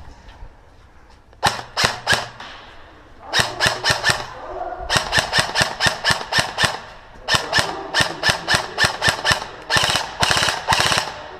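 Airsoft guns firing: a few single shots, then rapid strings of sharp cracks, several a second, with short gaps between the strings.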